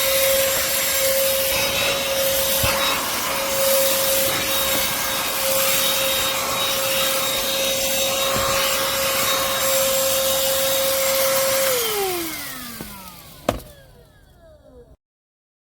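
Black+Decker Pivot Vac cordless handheld vacuum running at a steady whine, then switched off near the end, its motor winding down in a falling pitch, followed by a single click.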